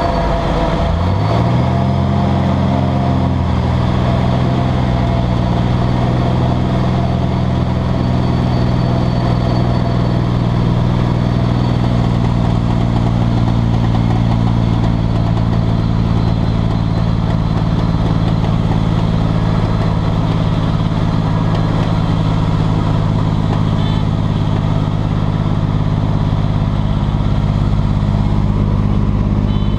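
Single-engine piston aircraft engine and propeller, heard from inside the cabin, rising in pitch over the first second or two and then running at a steady pitch.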